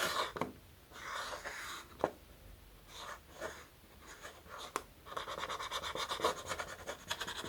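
Marker drawing on a rubber balloon: short scratchy strokes, becoming a dense, continuous run of strokes about five seconds in.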